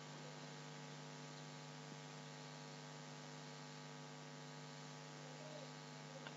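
Faint, steady electrical hum with many evenly spaced overtones, the background noise of the recording, with nothing else sounding.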